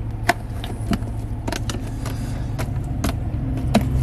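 Cleaning slime gel pressed into and pulled off a plastic cup holder, making a string of irregular sharp sticky clicks and pops. A steady low hum runs underneath.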